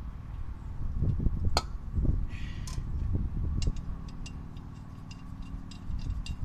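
A gloved hand working a lug nut on a wheel stud: a few dull knocks and a sharp click early on, then a run of small metallic ticks, over a steady low hum.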